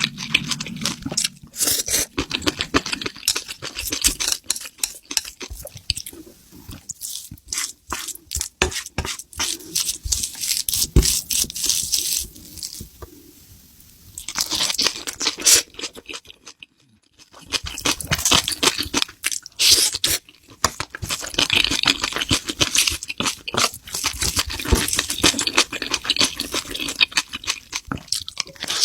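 Close-miked eating of spicy seafood: dense crunching, crackling and chewing, with tearing sounds, broken by two short pauses about 13 and 17 seconds in.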